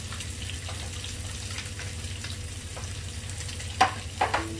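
Masala-coated salmon fillet frying in coconut oil in a grill pan: a steady sizzle with small crackles. A few sharp clicks stand out near the end.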